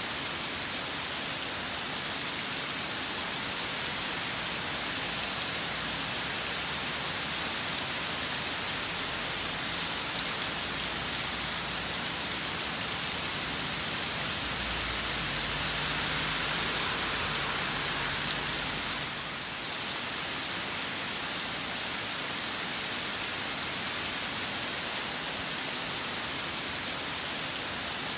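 Steady rain falling in a storm, a continuous hiss of rain on surfaces. A little past halfway it swells slightly for a few seconds, with a low rumble underneath.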